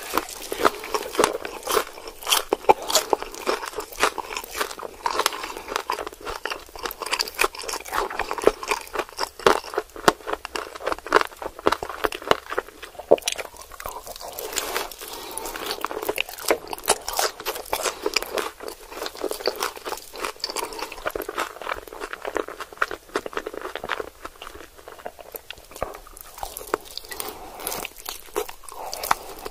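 Close-miked crunching and chewing of crispy fried chicken wings dipped in melted cheese: a dense run of sharp, crackling bites, a little sparser in the later part.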